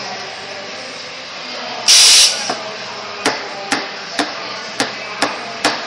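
A short, loud burst of steam hissing from an espresso machine's steam wand about two seconds in, then a run of sharp knocks, about two a second.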